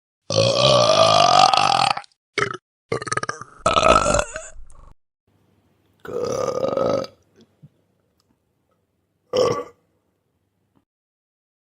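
A run of about six separate human burps of different lengths, with silent gaps between them. The first is the longest, rising in pitch over nearly two seconds, then come shorter ones, and a last brief burp arrives after a pause of a couple of seconds.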